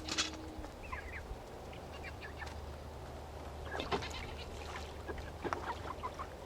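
A flock of chickens clucking and chirping while they feed on scattered grain, with short, scattered calls.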